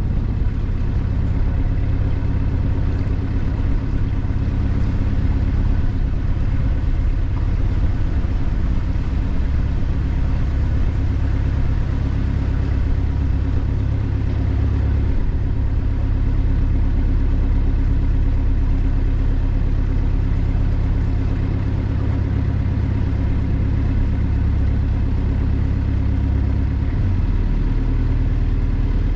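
A boat taxi's engine running steadily with a deep hum, heard close up; near the end its note shifts lower.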